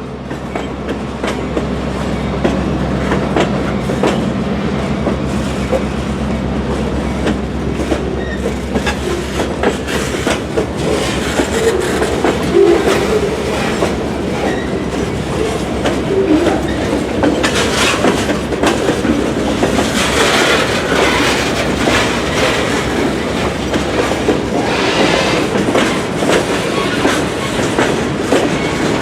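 Diesel-hauled freight train passing: the locomotive's engine hum swells over the first few seconds, then the wagons' wheels clatter over the rail joints in a rapid run of clicks.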